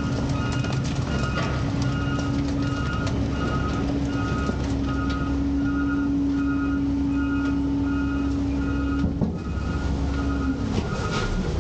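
Autocar/Heil front-loader garbage truck running, its engine rumbling and hydraulics humming steadily as the cardboard load in the hopper is packed; the hum stops about nine seconds in. A reversing alarm beeps about twice a second throughout.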